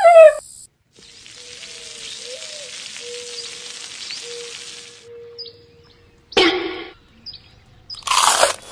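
Food sizzling in oil on a hot griddle, a steady hiss lasting several seconds after a short falling cry at the very start. A short sharp burst follows, and a crunchy bite comes near the end.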